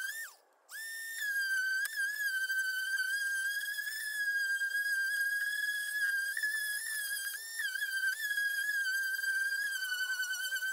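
Corded electric sander with a small sanding pad, its motor whining at a high, steady pitch as it sands old black primer on a car's body panels. The pitch sags a little under pressure and jumps briefly higher when the pad comes off the panel. Just after the start it winds down and stops for about half a second, then starts up again.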